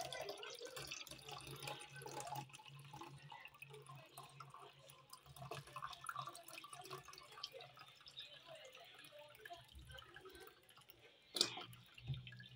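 Milk pouring from a carton into a plastic measuring jug, a faint, uneven trickling stream. A sharp knock near the end.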